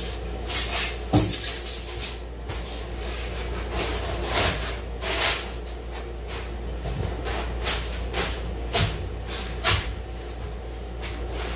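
A rigid white insulation board being fitted between the wall studs: irregular scraping, rubbing and a dozen or so short knocks as it is worked and pressed into place.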